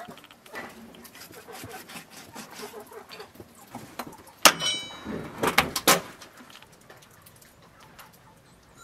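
Large kitchen knife cutting up a raw whole turkey on a metal tray: soft slicing and scraping, then a sharp metallic clink with a brief ring about four and a half seconds in, followed by a few more loud knocks and cuts.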